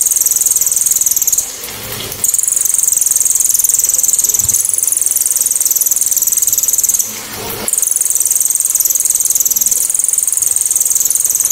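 Cililin (crested jay) giving long, very high, shrill calls that are loud, sharp and clear, in three sustained stretches broken by two short pauses, about a second and a half in and about seven seconds in.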